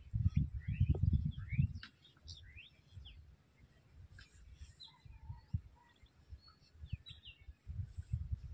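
Birds chirping, many short quick calls. Louder low rumbling noise comes in during the first two seconds and again near the end.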